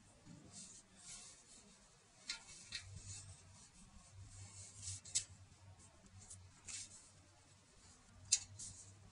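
Stainless steel chain-mail safety glove being pulled onto a hand: the metal rings rustle and scrape together in irregular bursts, with a few sharper clinks, the loudest near the end.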